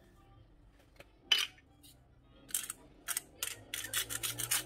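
Salt being dispensed from a bottle over a frying pan of minced chicken: a run of quick rasping strokes, about three or four a second, that starts about two and a half seconds in. Before it there is a quiet stretch with one short scrape about a second in.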